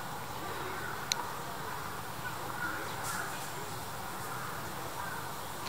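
Outdoor park ambience: a steady background hum with faint distant calls, and one short sharp tick about a second in.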